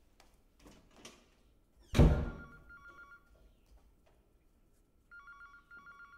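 A loud thump about two seconds in, then a telephone ringing twice, each ring a pair of short trilling bursts.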